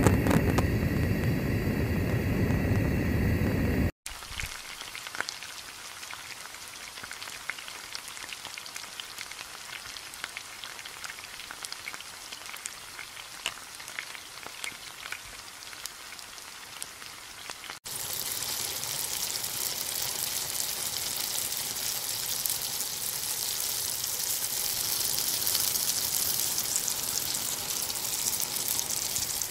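A louder steady rush for the first four seconds, then quiet light crackling. From about eighteen seconds in, breaded chicken deep-frying in hot oil with a steady, dense sizzle.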